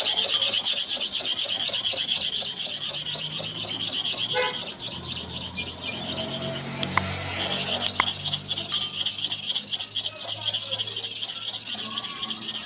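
Hair-clipper blade being rubbed back and forth by hand on an abrasive sharpening surface in quick, steady strokes: a continuous scratchy rasping as a worn, over-used blade is ground and polished to a shine.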